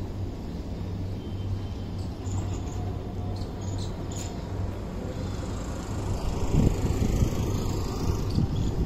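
Outdoor background noise with a steady low hum, a few faint high chirps in the first half, and wind buffeting the microphone from about six seconds in.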